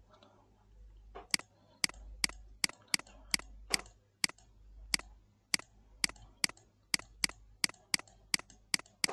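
Computer mouse clicking over and over, sharp single clicks about two or three a second, starting a little over a second in, over a faint low hum.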